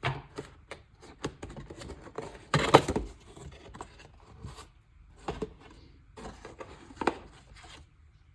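Paper and cardboard packing being handled as items are lifted out of a camera box: irregular rustling, scraping and light knocks, the loudest rustle about two and a half seconds in.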